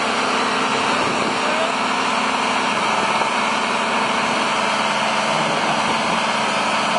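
Excavator's diesel engine running steadily close by.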